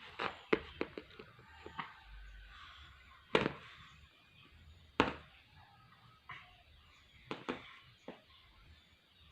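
A run of short, sharp coughs: a quick string of them in the first two seconds, two loud single coughs a little later, and a few more near the end.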